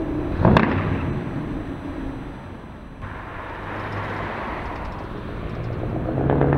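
Loud Scania V8 truck engines. One truck drives off into the distance, with a single sharp bang about half a second in. Another comes toward the microphone, growing steadily louder toward the end.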